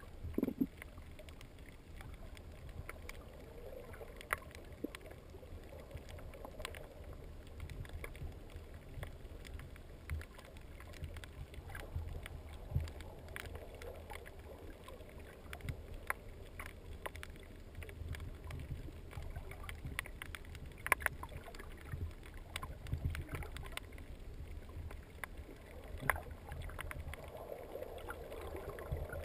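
Underwater ambience heard through a GoPro camera's waterproof housing: a steady low rumble of water movement with scattered faint clicks and crackles.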